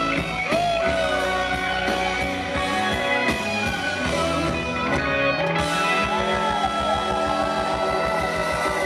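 Live rock band playing, led by an electric guitar solo with bent notes that slide up and back down, over bass and drums.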